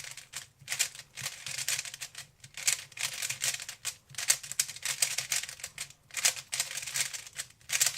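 3x3 Rubik's cube turned at speed, its plastic layers clicking and clacking in rapid runs. Each run of about a second and a half is one T-perm, repeated about five times with brief pauses between.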